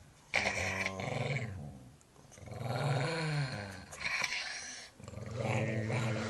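A dog growling in four long, low stretches with short breaks between them, one of them rising and falling in pitch.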